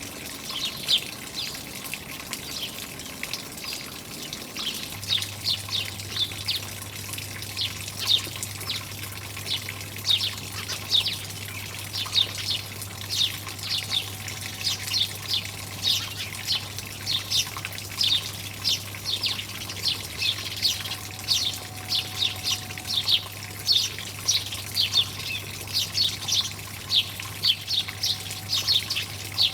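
Small birds chirping in quick, repeated short notes, several a second, over steadily running water. A low steady hum comes in about five seconds in.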